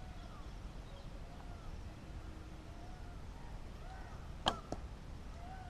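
A recurve bow is shot: the string snaps sharply once as the arrow is released, about four and a half seconds in, followed by a fainter click a moment later. Birds chirp faintly in the background.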